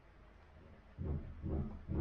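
Low, indistinct murmuring of a man's voice in short bursts, starting about halfway through, with no clear words.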